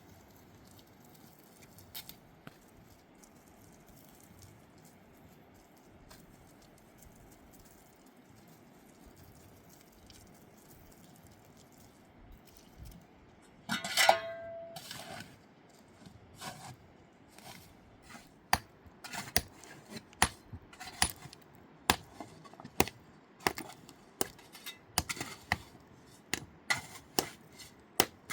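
Faint steady hiss, then a single loud ringing clink about halfway through, followed by a run of sharp taps or knocks coming about once or twice a second.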